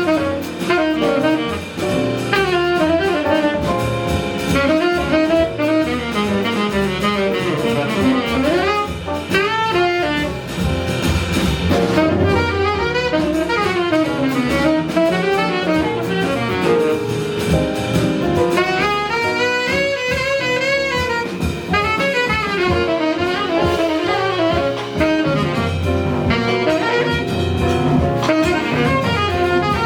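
Live jazz combo playing, a saxophone carrying a winding lead line over double bass, piano and drum kit.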